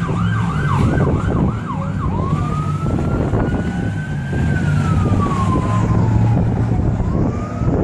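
Police siren on a fast yelp for about two seconds, then a slow wail that rises, falls and starts to rise again near the end, over a steady low engine drone.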